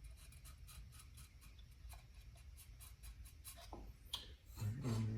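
Light, irregular clicking and scraping of small metal muffler parts being handled and test-fitted by hand, with a man's low steady hum starting near the end.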